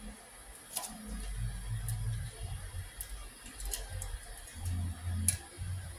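Bambu Lab P1S 3D printer loading filament, its motors running in short spells of low rumbling, with a few sharp clicks scattered through.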